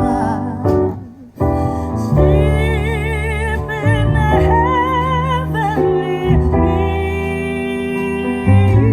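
A song played back on a JBL Charge 4 Bluetooth speaker: a singing voice with vibrato over piano and bass. The music dips briefly about a second in, then carries on.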